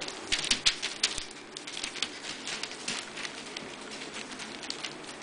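Havanese puppies' paws scrabbling on the newspaper lining their pen: a run of light crackles and clicks, busiest in the first second or so, then sparser.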